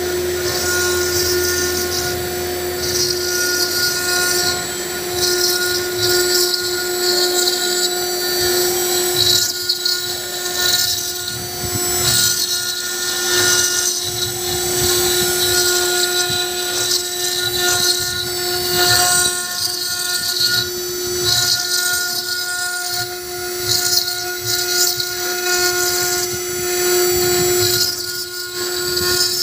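Black Smith KS-1325 CNC stone carving router's spindle running with a steady whine as its engraving bit grinds into a stone slab, with a wavering gritty hiss from the cut.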